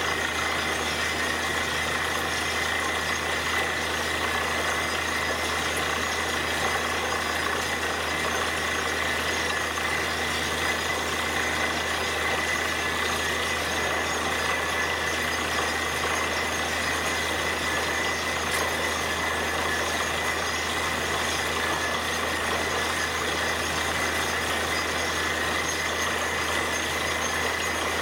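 Truck-mounted borewell drilling rig and its air compressor running steadily while drilling, a loud even machine noise with a constant high whine.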